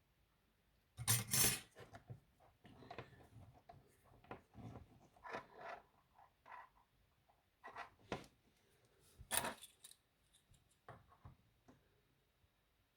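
Small tools and wires being handled at a workbench during soldering: scattered light clicks, rubs and scrapes, loudest about a second in and again near nine seconds.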